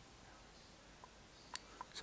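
Near silence with a few faint metallic clicks, three in the second half, from the steel shift drum and shift fork of a 2010 Honda CRF250R gearbox being handled and fitted.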